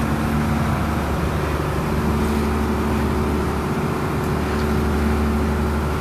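Chartered lake boat's engine running steadily, a low even hum under a rushing noise.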